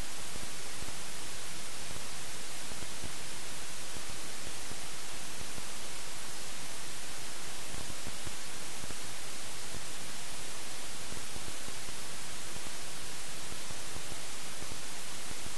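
Steady hiss of static: featureless electronic noise, strongest in the treble, from a helmet camera whose audio recording failed.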